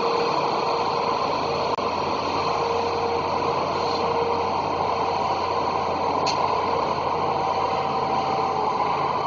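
Diesel engines of a rail grinder train running as it moves through the station, heard from a distance as a steady noise with faint steady hums. A brief click about six seconds in.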